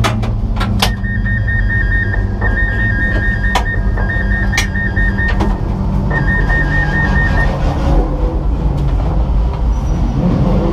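Porsche 911 GT3 Cup race car's flat-six engine idling steadily, heard from inside the stripped cabin. A rapid high electronic beeping sounds in bursts through the first half and again briefly later, with a few sharp clicks in between.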